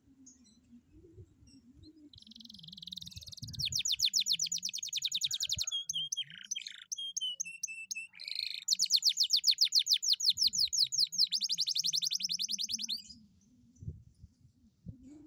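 Domestic canary singing one long song of about ten seconds: a buzzy opening, then fast rolling trills of rapidly repeated notes, a few slower whistled notes in the middle, and a second long fast trill that ends abruptly.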